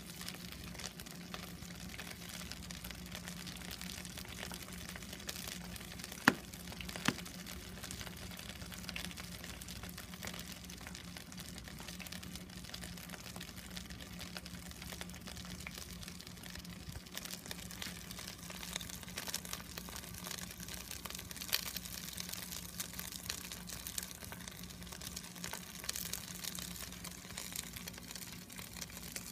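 Karaage (Japanese fried chicken) deep-frying in hot oil: a steady sizzle with scattered small pops. Two sharp knocks stand out about six and seven seconds in.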